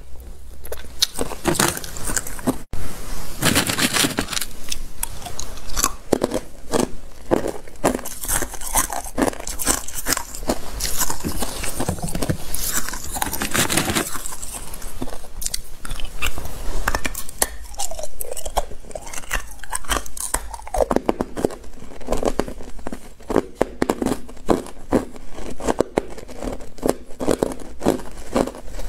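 Hard clear ice being bitten and chewed close to the microphone: a dense, irregular run of sharp cracks and crunches.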